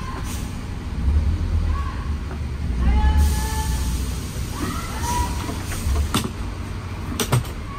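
Steady low rumble of a vehicle, with faint voices over it and a few sharp clicks near the end.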